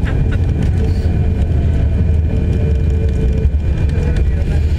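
Cabin noise of an Airbus A340-600 on its landing roll after touchdown, spoilers raised: a loud, steady low rumble of the aircraft rolling along the runway, heard from a seat over the wing.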